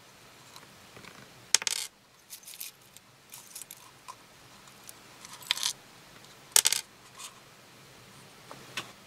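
Handful of small metal parts and tiny capacitors salvaged from hard drives clinking together in a palm as fingers sift through them: scattered light clinks, some single and some in quick little clusters.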